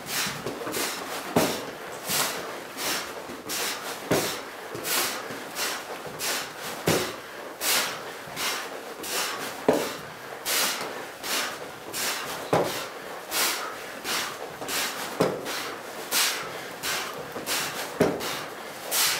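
Squat thrusts done with a 60-pound backpack on a rubber gym floor: seven heavy thuds, about one every three seconds, as the body and pack land with each rep, with lighter scuffs and taps between.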